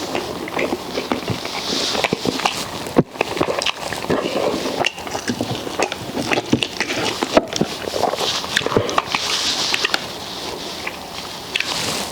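Close-up eating sounds: chewing and lip smacking on fufu, okra soup and pork, a dense run of short wet clicks.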